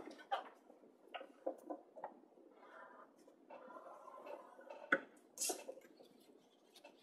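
Bone folder scraping along the grooves of a scoring board as it scores a cardstock strip, with small taps and clicks of the paper being handled. A sharp click just before five seconds in, then a brief rustle as the strip is lifted off the board.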